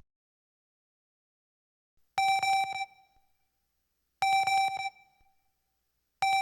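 Electric buzz sound effect: after about two seconds of silence, three identical short buzzing beeps, each under a second long, spaced about two seconds apart.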